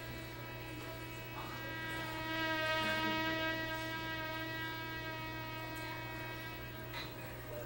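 Hydrogen flame burning at the small hole atop a copper can, singing with a steady hum rich in overtones. Air is drawn in at the bottom as the hydrogen burns, so the hydrogen–air mixture inside keeps shifting toward an explosive one. The tone swells louder about two to three seconds in, then eases back.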